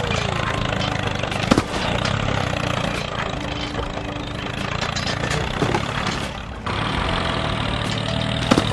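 A tractor engine running steadily at idle, with two sharp knocks, one about a second and a half in and one near the end.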